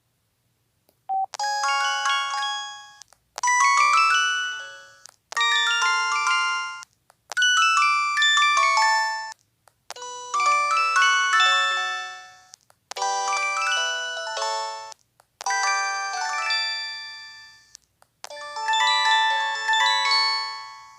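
Built-in polyphonic tones of an LG 630 (PD6335) mobile phone played one after another: eight short melodic jingles, each about two seconds long and fading out, separated by brief silences.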